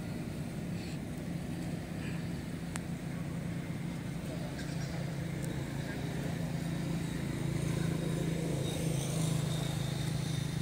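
Steady low hum of a running engine, growing a little louder in the second half, with a couple of faint clicks.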